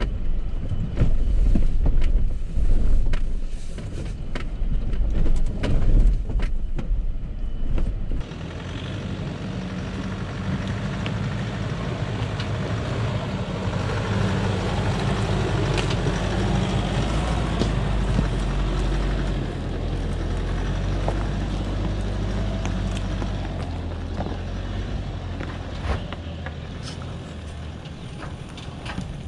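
Inside the cab of a four-wheel drive crawling over a rocky track: low engine rumble with frequent knocks and rattles from the body and suspension. About eight seconds in the sound switches to the steadier low hum of 4WD engines crawling slowly up a rocky climb, heard from outside.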